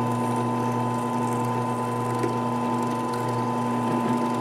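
Steady, even hum of an electric shop machine's motor left running, with a few faint light ticks.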